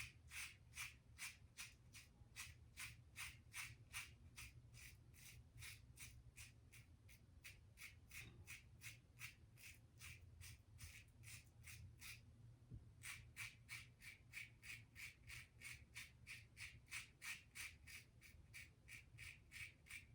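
Safety razor scraping through lathered stubble in short, quick strokes, about two or three a second, with one brief pause about twelve seconds in. The razor is a Gillette Tech fat handle fitted with a 3D-printed base plate.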